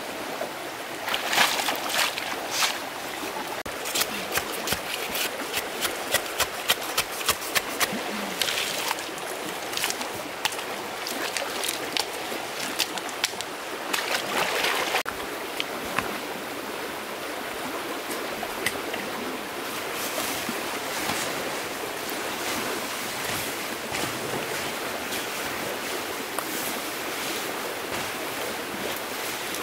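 Stream water flowing steadily, with splashes and a run of short sharp clicks and knocks through roughly the first half, then just the steady flow.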